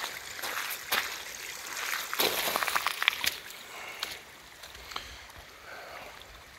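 Storm runoff flowing in a thin sheet across an asphalt road and trickling over its broken, washed-out edge, with a few short scuffs scattered through.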